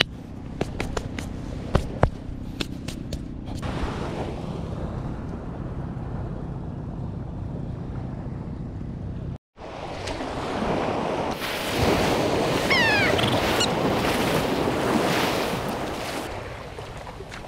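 Small waves washing onto a rocky shore, a steady rushing noise that grows louder in the second half and eases off near the end. A run of short sharp clicks in the first few seconds, and a brief drop to silence about halfway.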